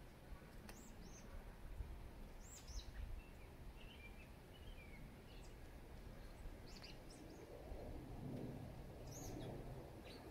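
Faint outdoor ambience with a low steady background hum, broken by scattered short, high chirps from small birds.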